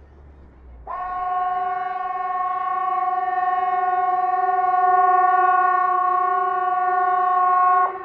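Hesa Fredrik civil defense siren sounding its test signal: a steady chord of several tones that starts abruptly about a second in and holds for about seven seconds without rising or falling. Near the end it cuts off sharply, leaving the same chord going on much fainter.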